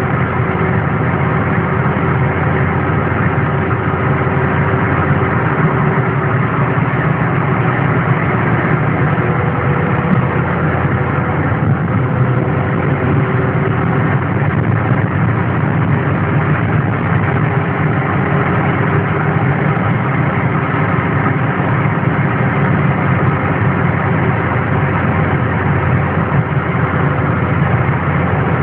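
Mercedes-Benz W123 300 TD Turbodiesel's five-cylinder turbodiesel engine idling steadily, on its first run after restoration.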